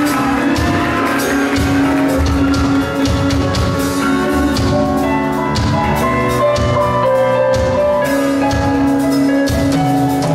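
Live rock-pop band playing an instrumental passage: drum kit, electric guitars, bass and keyboard, without vocals, steady and loud.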